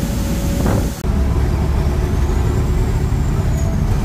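After about a second of outdoor noise, a semi-truck's diesel engine and road noise drone steadily as the truck drives down a highway.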